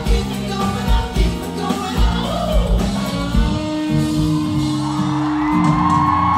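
Live pop-rock band playing with vocals over a steady kick-drum beat, bass and electric guitar, with a long held note near the end. Recorded from within the audience.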